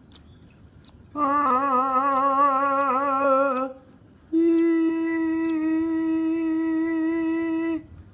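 Two long, held voice-like cries about half a second apart, the first wavering in pitch and the second held steady, heard as the call of a gaping nestling.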